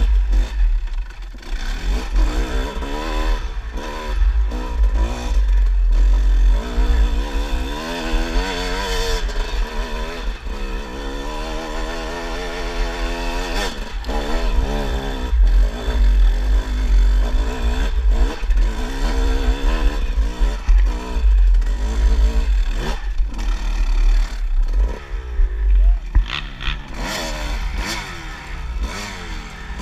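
Kawasaki dirt bike engine being ridden on a trail, its pitch repeatedly rising and falling as the throttle is worked on and off, with chassis clatter. A heavy low rumble runs under it.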